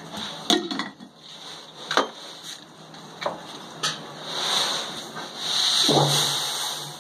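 Metal clinks and knocks as the hot-bulb heating lamp and fittings of an old Ruston Hornsby oil engine are handled during preheating, before the engine is started. A steady hiss comes in about four seconds in and grows louder.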